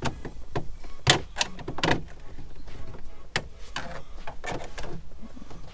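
About half a dozen sharp, irregularly spaced clicks and knocks: a car light fitting being worked loose from its housing by hand.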